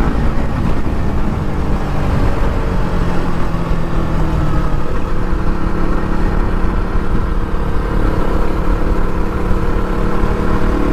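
KTM RC sport motorcycle engine running continuously, its note shifting up and down in pitch a few times.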